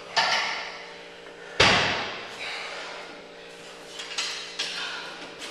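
Metal gym weights clanking: a sharp clank at the start, a heavy, deep clank about a second and a half in, then lighter clinks of cast-iron weight plates being handled near the end.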